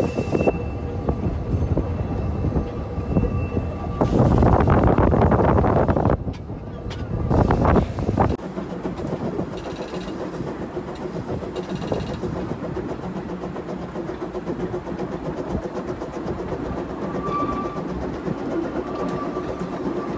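Ride-on miniature steam locomotive and train running along the track. Louder rushing noise comes in stretches during the first eight seconds, then settles to a steady running rumble of the train on the rails.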